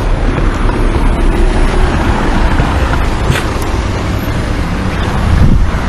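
Road traffic going by close at hand: a steady rush of car engines and tyres with a low rumble, swelling a little near the end.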